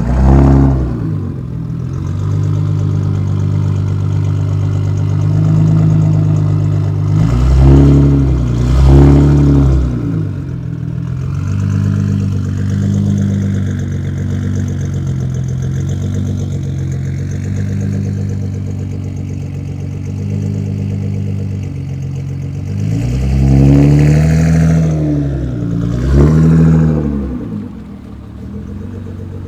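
Nissan GT-R engine and exhaust rumbling at low revs, blipped into short revs that rise and fall back: one at the start, a pair about eight seconds in and another pair near the end, with exhaust pops and crackles.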